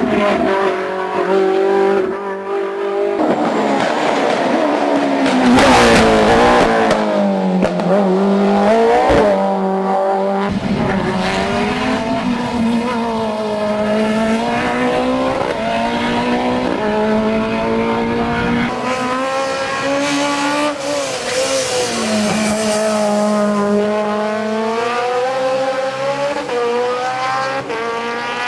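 Racing car engines revving hard on a hill-climb course, one car after another; the pitch climbs and drops repeatedly with gear changes and corners.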